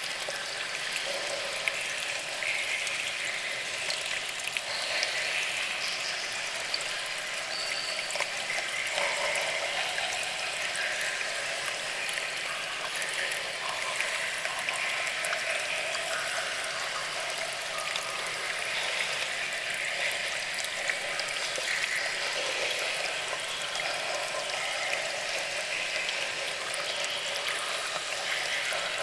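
Cave ambience of steady trickling water, with scattered brief drips.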